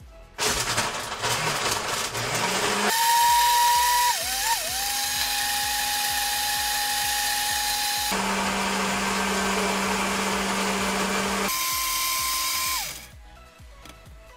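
Countertop blender motor running on a thick smoothie mix. It starts with a noisy whir, then settles into a steady whine that dips in pitch twice about four seconds in. The whine changes tone abruptly a couple of times, then winds down and stops about thirteen seconds in.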